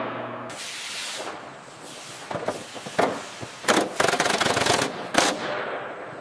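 Pneumatic rivet guns hammering on aluminium aircraft structure in several short rapid bursts, the densest cluster about four to five seconds in, echoing in a large hall.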